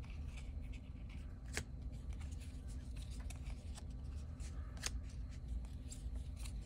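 Paper trading cards being handled and flipped through: soft sliding with light ticks and two sharper clicks, one about a second and a half in and one near five seconds, over a low steady hum.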